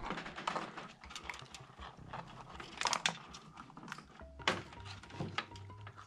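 Small plastic clicks and rustling as cables and fan connectors are handled among the wiring inside a PC tower case, with a couple of louder clicks.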